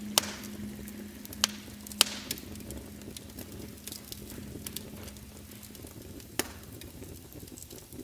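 Wood fire crackling in a fireplace: sharp, irregular pops and snaps over a soft hiss, a few louder pops in the first two seconds and another about six seconds in.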